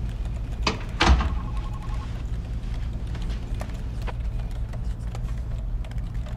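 Two sharp knocks about a second in, the second louder and followed by a brief ringing tone, then a few faint clicks over a steady low hum.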